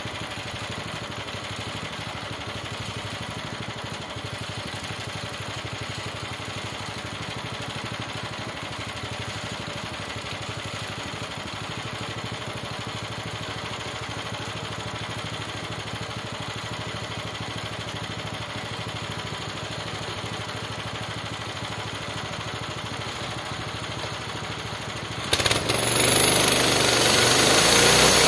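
Small gasoline engine of a homemade bandsaw sawmill idling steadily. About 25 seconds in it is throttled up suddenly and runs much louder as the band blade is driven into the log.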